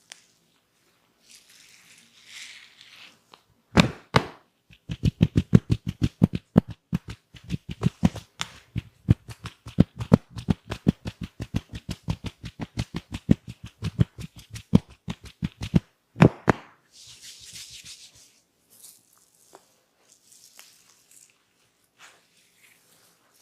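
A barber's hands rapidly tapping and slapping on a person's head or body during a massage, about four to five sharp strikes a second for roughly twelve seconds. Soft rubbing hisses come before and after the strikes.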